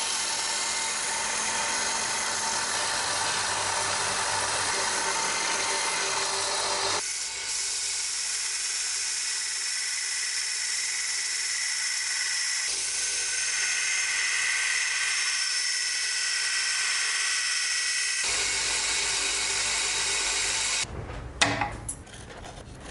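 Small bench belt grinder running with the steel of a knife blade pressed against the belt, grinding with a steady hiss that changes character a few times. About three-quarters of the way in it stops, followed by a few sharp knocks and light scratching.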